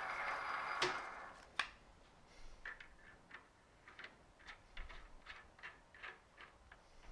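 Import metal lathe running, then stopping about a second in with two sharp clicks. Then a steel hex nut is turned by hand onto the freshly cut 10 TPI external thread, giving a string of light, irregular metallic ticks.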